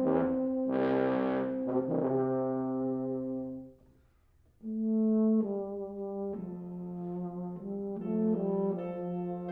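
Two euphoniums playing in harmony. A held chord fades out about four seconds in, there is a brief pause, and then both come back in with a moving melodic line.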